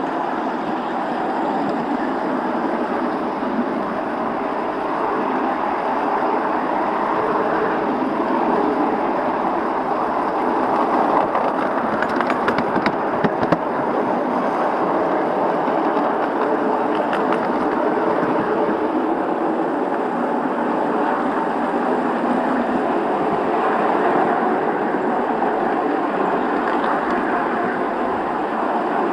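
Miniature railway train running along its track, heard from the roof of the train: a steady running noise of wheels on rail, with a few short sharp clicks about halfway through.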